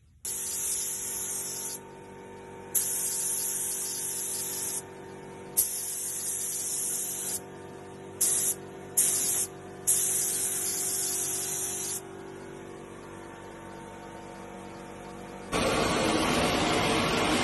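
Paint spray gun hissing in about six separate bursts, each from a fraction of a second to two seconds long, as the trigger is pulled and released while laying on a coat of enamel, over a steady machine hum. About fifteen seconds in, a louder, fuller rushing noise takes over.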